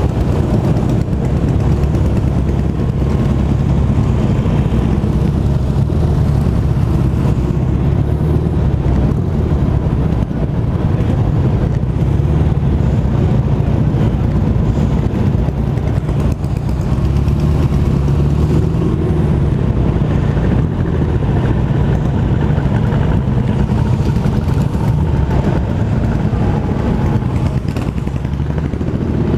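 Vespa scooter and a pack of motorcycles riding close behind it, their engines running steadily at cruising speed: a constant engine drone with no sharp revs.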